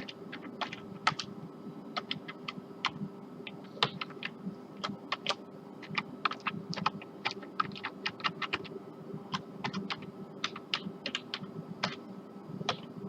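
Typing on a computer keyboard: irregular key clicks, often several a second, over a faint steady hum.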